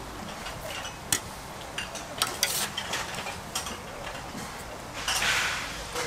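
Metal utensils clicking and clinking irregularly against cookware, with a short burst of hiss about five seconds in.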